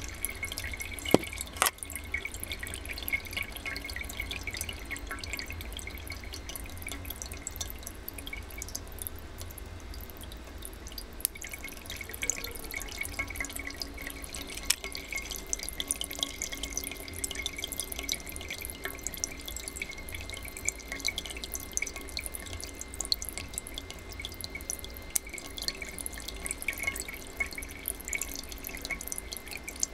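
Thin streams of water dripping and pattering steadily into open tin cans, a fine continuous spatter of small ticks. Two sharp clicks come close together about a second in.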